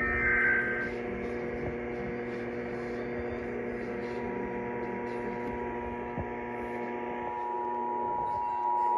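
Weak, noisy radio reception of an Emergency Alert System test with a steady hum throughout. It opens with the tail of a warbling SAME data-header burst. About four seconds in, the EAS attention signal's two-tone beep fades in and grows louder toward the end.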